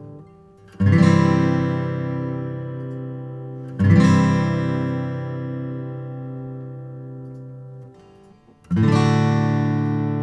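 Martin M-36 steel-string acoustic guitar strummed: three full chords, each left to ring and fade slowly, with a short silence before the last.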